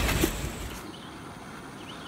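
Rustling and low rumble from walking on a leafy forest trail, which cuts off less than a second in. It gives way to a much quieter outdoor background with a few faint short chirps.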